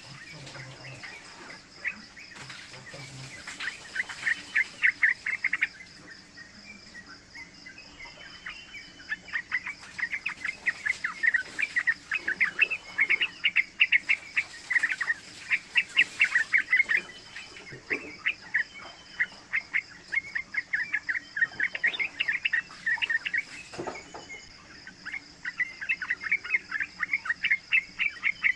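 Young yellow-vented bulbul singing long runs of rapid, chattering notes, several times over.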